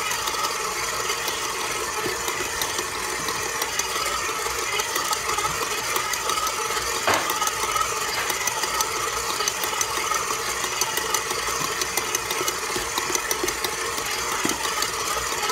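Electric stand mixer running steadily, its dough hook kneading bread dough in the bowl, a motor hum with a light rapid rattle of ticks over it and one sharper click about seven seconds in.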